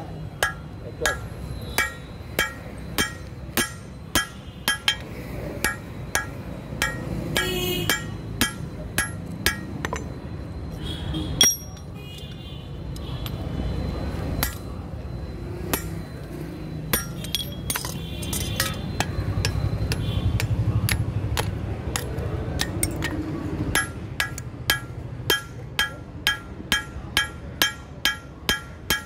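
Hand hammer striking red-hot steel on an anvil while forging an axe head: sharp, ringing clinks at about two blows a second. The hammering stops for several seconds in the middle, then resumes and speeds up near the end.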